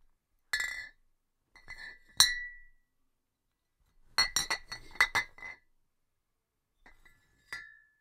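Glass beer bottle knocked gently, giving light clinks that each ring briefly. A few single clinks come in the first three seconds, the loudest a little after two seconds, then a quick cluster of several between about four and five and a half seconds, and two softer ones near the end.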